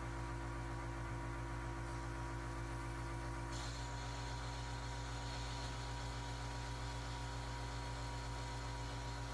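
A steady low electrical hum with a hiss over it. The hiss gets brighter about three and a half seconds in.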